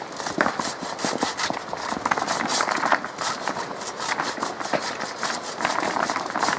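Hand saw rasping back and forth through vine tangled around a stag's antlers, mixed with irregular rustling and clattering among the branches and loose rocks.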